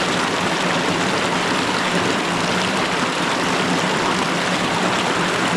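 Creek water flowing steadily, an even rushing sound with no break.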